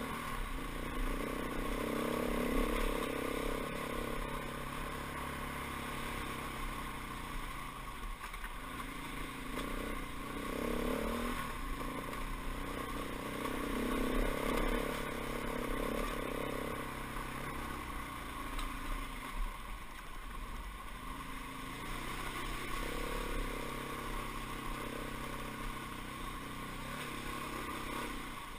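Dirt bike engine running as the bike is ridden, its note rising and falling repeatedly.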